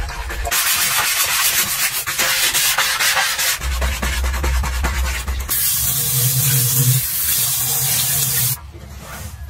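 A sponge scrubbing a chrome bathroom tap in quick rubbing strokes, then the tap running water over it into the basin for about three seconds, cutting off shortly before the end.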